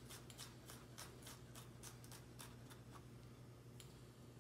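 Chef's knife mincing shallot on a wooden cutting board: faint, quick, even taps of the blade on the board, about four a second, that stop about three seconds in, with one more tap near the end.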